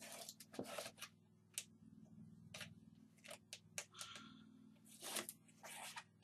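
Faint crackling and rustling as the backing is peeled off tape along the bottom edge of a chipboard box, with the board lightly handled and knocked between peels.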